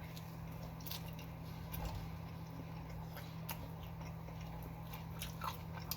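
A person chewing a mouthful of sandwich, with soft mouth clicks now and then, over a steady low hum.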